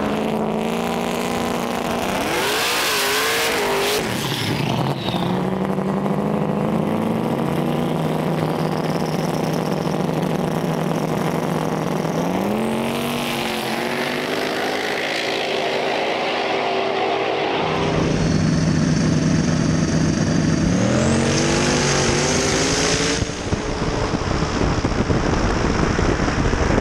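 Drag-racing street-car engines running at high revs, with the engine pitch sweeping sharply upward three times as cars rev and accelerate.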